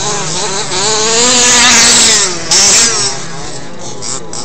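Several radio-controlled off-road cars racing, their small motors revving up and down in overlapping pitches, loudest about a second in.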